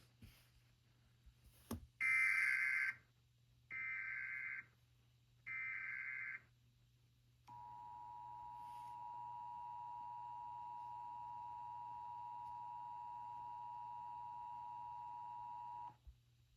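Emergency Alert System tones: three short bursts of SAME header data, each about a second long, the first the loudest, followed by the EAS attention signal, a steady two-tone tone held for about eight seconds that cuts off sharply.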